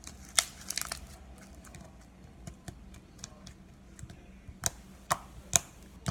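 Slime being handled, squished and poked. It gives off scattered sharp clicking pops, a few in the first second and three loud ones near the end.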